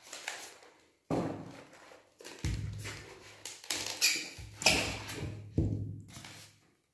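A packing box being opened and a tub of peanut butter lifted out of it and set down on a table: about five sharp knocks and thuds, with scraping and rustling of the packaging between them.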